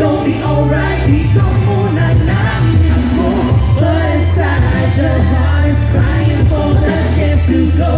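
Live hip-hop performance over a loud stage PA: vocals on microphones over a backing track with a deep, heavy bass line.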